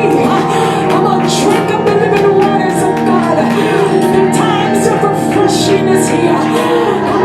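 Worship music with singing over held chords, loud and continuous, with short sharp hits recurring throughout.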